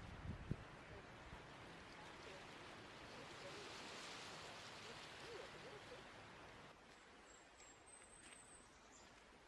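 Faint wash of water along a rocky shore, a soft hiss that swells and then fades. Near the end it gives way to quieter woodland air with a thin, high chirp.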